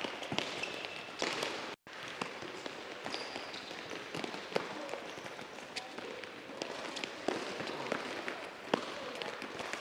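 Several soccer balls being dribbled and touched on an indoor court floor: scattered taps and thuds of feet on the balls and balls on the floor, mixed with running footsteps. The sound cuts out for a moment about two seconds in.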